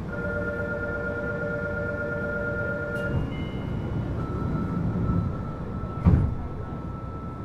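Running noise inside a Fukuoka City Subway Series 2000 car with Hitachi GTO-VVVF traction: a rumble with steady whining tones that change pitch about three seconds in. A loud thump comes about six seconds in.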